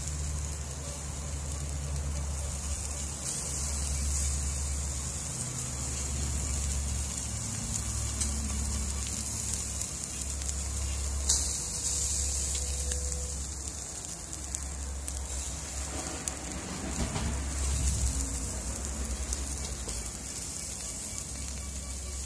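Sambal-marinated yellow croaker sizzling in a wire grilling basket over charcoal: a steady high hiss, with a single sharp crackle about halfway through, over a low steady rumble.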